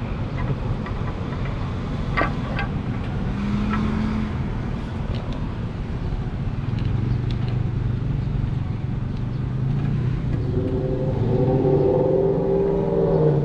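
Strong wind buffeting the microphone: a steady low rumble, with a few light clicks of handling about two seconds in. A wavering pitched drone joins in from about ten seconds in.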